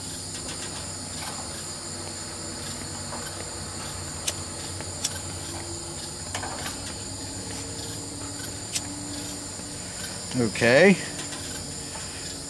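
Steady high-pitched chorus of night insects such as crickets, with a few faint clicks as a liquid-fuel camp stove's fuel valve is handled.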